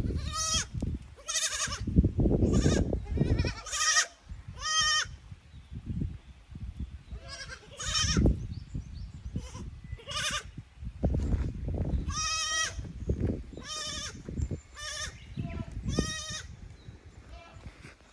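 Young goats bleating over and over: a dozen or more short, high calls, some overlapping, over bursts of low rumbling noise.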